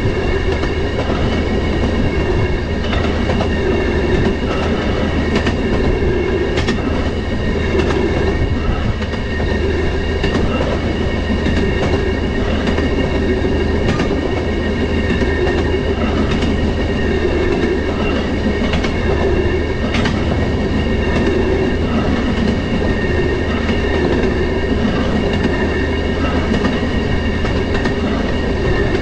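Railroad motorcar running along the track: a steady engine and wheel drone with a high, steady ringing over it and scattered clicks as the wheels cross rail joints.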